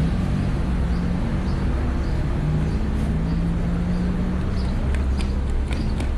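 Wind buffeting the microphone in a low, steady rumble, with a low hum underneath that shifts in pitch now and then, like traffic. A few light clicks come near the end.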